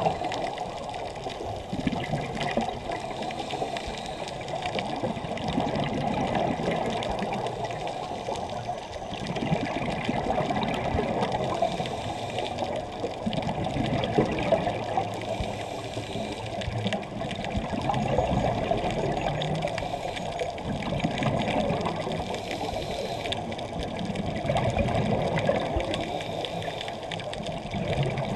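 Muffled underwater noise of scuba diving: a diver's exhaled regulator bubbles gush and rumble in swells every few seconds.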